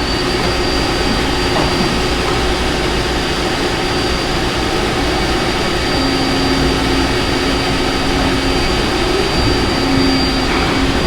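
Steady drone of running industrial machinery, typical of hydraulic pumps and motors, with a constant high whine and a low hum that swells from about six seconds in.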